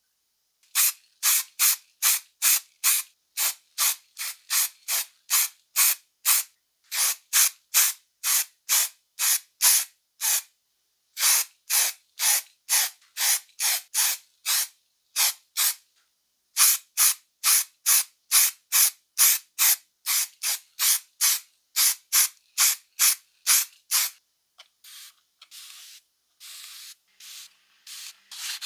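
KEMP G-SAVE galvanizing metallic aerosol spray can sprayed in short, rapid bursts, about three a second, with two brief pauses. Near the end the spraying stops and quieter rubbing strokes of wet sandpaper begin.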